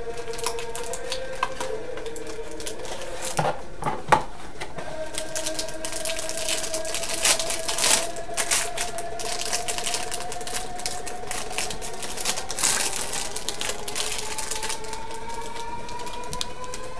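Hands tearing and crinkling a foil trading-card pack wrapper and flicking through the cards: a run of crackles and clicks. A sharp snap comes about four seconds in, and a thicker cluster about seven to eight seconds in.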